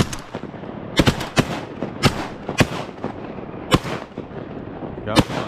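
Shotguns fired by several hunters in a ragged volley: about seven shots spread unevenly over five seconds, the first the loudest.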